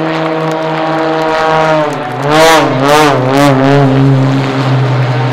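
Aerobatic propeller plane's piston engine running loudly at high power, its pitch steady at first, then wavering up and down several times for a couple of seconds about halfway through as the plane manoeuvres.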